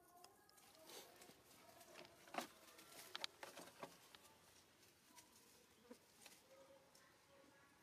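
Faint rustling and crackling of dry leaves and twigs as young macaques scuffle and move over them, with several sharper crackles between about two and four seconds in.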